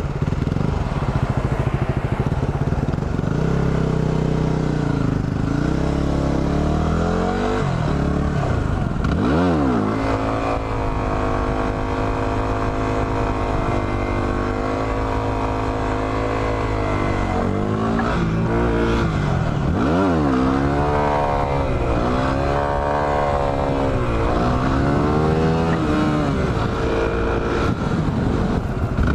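Yamaha WR250R's single-cylinder four-stroke engine running under way, its pitch rising and falling with the throttle. The revs hold steady for several seconds in the middle, with sharp dips about a third and two-thirds of the way through.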